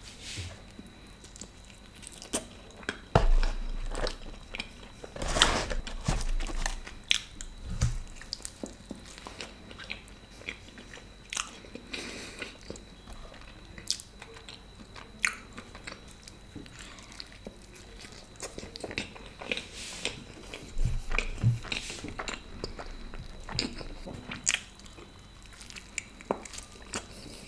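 A man biting and chewing pizza and stuffed garlic bread close to the microphone, with crunches of crisp crust. There are several louder crunching bites, the strongest about three and five seconds in.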